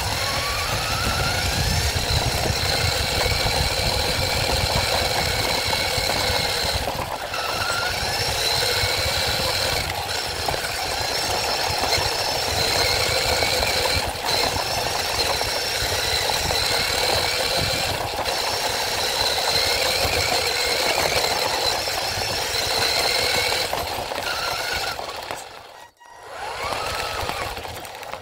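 Onboard sound of a radio-controlled rally car driving on a dirt track. The motor runs with a high whine that rises and falls in pitch as the car speeds up and slows, over the rattle and rumble of the chassis on rough dirt. The sound cuts out briefly near the end.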